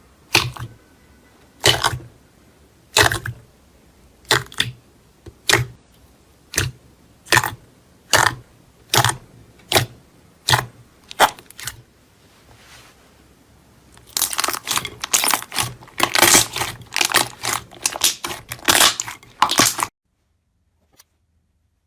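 A crunchy material being crushed by hand for ASMR: about a dozen separate sharp crunches, roughly one a second, then a dense run of crackling for several seconds that cuts off suddenly near the end.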